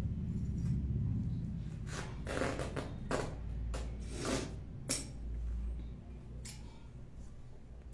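Handling sounds of hand knitting: a handful of short scratchy rustles and clicks from the needles and yarn, bunched between about two and five seconds in, over a low steady rumble.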